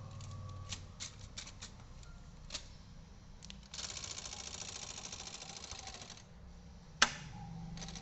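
Brother Deluxe 750TR manual typewriter being worked: a few separate key strikes, then a rapid run of mechanical clicking lasting about two and a half seconds, then a single loud clack about a second before the end.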